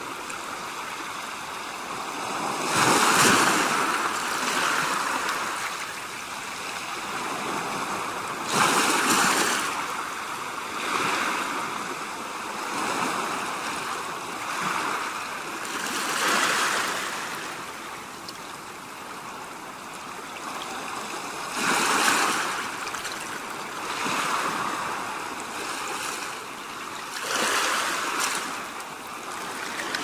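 Sea waves breaking and washing in: a steady hiss of water with a swell every few seconds, the loudest a few seconds in and again about nine seconds in.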